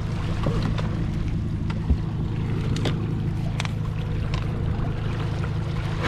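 Steady low drone of a boat's outboard motor running at trolling speed, with scattered light clicks and one dull thump about two seconds in.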